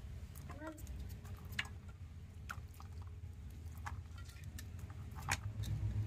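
Raw chicken pieces handled and dropped into a stainless-steel bowl: scattered wet slaps and light clicks against the metal, over a steady low rumble.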